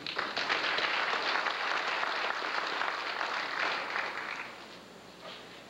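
Audience applauding, a dense patter of many hands clapping that fades away about four and a half seconds in.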